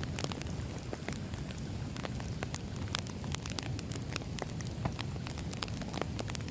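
Burning firewood crackling: irregular sharp snaps and pops over a steady low rumble of the fire.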